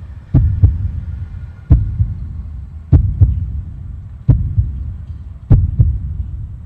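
Soundtrack of deep, heartbeat-like thuds over a steady low rumble. A thud comes about every 1.2 to 1.3 seconds, and some are followed by a weaker second one.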